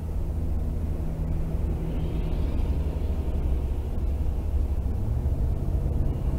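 Steady engine and road drone heard from inside a moving vehicle on the highway. Its hum drops slightly in pitch about five seconds in. A hiss swells and fades between about two and three and a half seconds in, as another vehicle passes.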